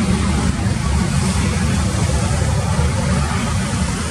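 Boeing 737 MAX 8's CFM LEAP-1B turbofan engines running at low taxi power: a steady low rumble with a hiss above it.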